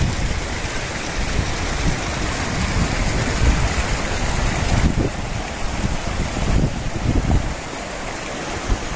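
Shallow rocky stream and a small cascade rushing steadily, with splashes of barefoot wading through the water and irregular low rumbles.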